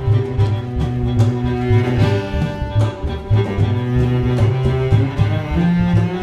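Live string trio of violin, cello and double bass playing together, the bowed violin and cello over quick repeated low notes.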